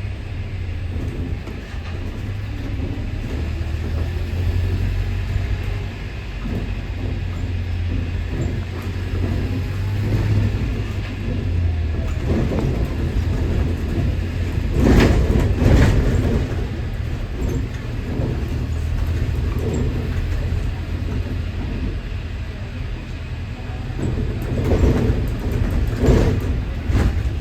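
London double-decker bus heard from inside while moving: a steady low engine and road rumble, with louder rattling and knocking about halfway through and again near the end.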